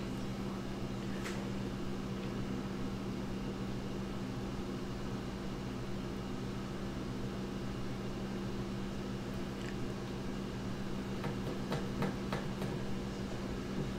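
A steady low hum with a faint hiss, like an appliance or ventilation running, with a few faint clicks and taps near the end.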